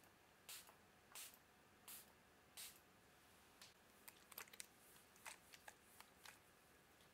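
Fine-mist pump spray bottle spritzing hair, five quick hissing sprays about two-thirds of a second apart. From about three and a half seconds in comes a run of small crackles and rustles.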